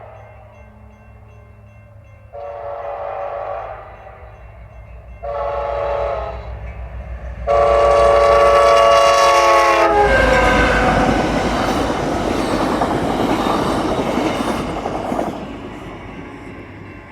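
Nathan K5LA five-chime air horn on an EMD F59PH diesel locomotive sounding three blasts, each longer and louder than the last, the third held about two and a half seconds. Right after it the train passes close by with a loud rumble of diesel engine and wheels on rail, fading away near the end.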